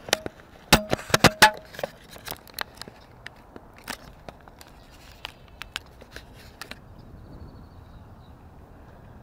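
Footsteps on grass and stone slabs with irregular clicks and knocks of handling noise from the fishing rod and the chest-mounted camera. The knocks are loudest about a second in and stop after about seven seconds, leaving a faint steady outdoor background.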